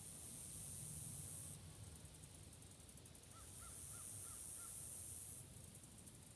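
Forest ambience: a high, fizzing hiss that swells and drops back, with a bird calling five quick times about halfway through.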